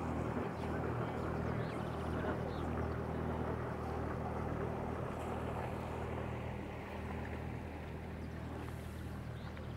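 Motorboat engine running steadily with a low, even hum, fading a little after about seven seconds.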